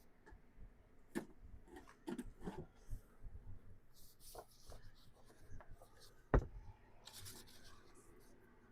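Paper rustling in short bursts as pages of a manual and papers from a file are handled and flipped, with small scattered clicks and one sharp knock about six seconds in.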